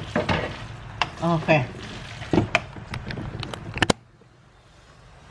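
Wooden spoon stirring and tossing spaghetti in a frying pan: irregular clicks and knocks of the spoon against the pan. The sound cuts off abruptly about four seconds in.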